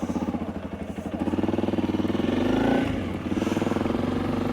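Honda CRF300 Rally's single-cylinder engine running under way, its note rising about a second in, dipping briefly near the three-second mark, then pulling steadily again.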